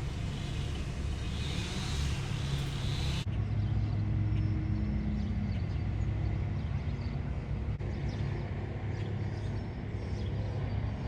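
A car driving: steady engine and road rumble. A hiss over it stops abruptly about three seconds in, leaving the low rumble alone.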